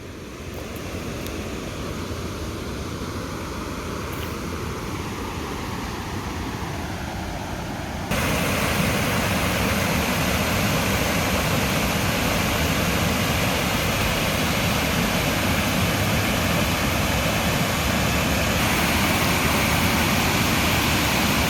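Steady rushing of river water over a waterfall, which suddenly gets louder and fuller about eight seconds in.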